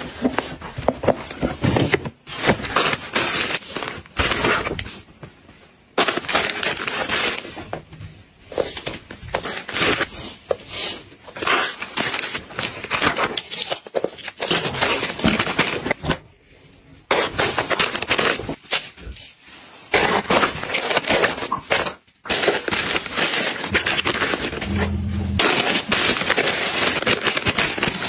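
Crinkling and rustling of plastic packaging and disposable diapers being handled. It comes in stretches of dense crackle broken by a few short pauses.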